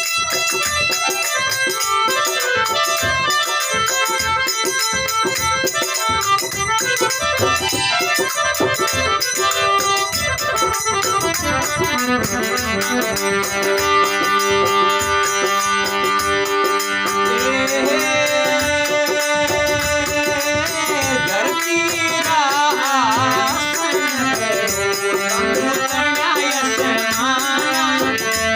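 Instrumental interlude of a Rajasthani folk bhajan: a melody played over a steady percussion beat, with no singing. In the last few seconds the lead notes waver and bend in pitch.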